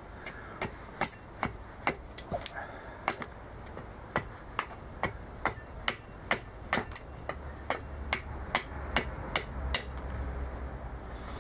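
Carving axe chopping into a green cherry plum spoon blank held upright on a chopping block, a steady run of sharp chops about two to three a second as the blank is roughed out to shape.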